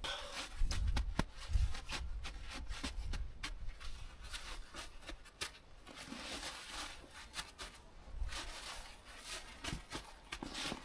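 Snow crunching and scraping in quick, irregular crunches and clicks with a few soft thumps, as snow is worked into a shelter's walls.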